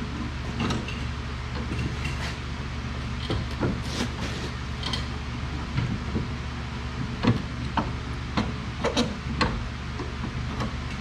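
Scattered metal clicks and knocks from hand tools at work on a car's suspension, a few sharper knocks around the middle, over a steady low hum.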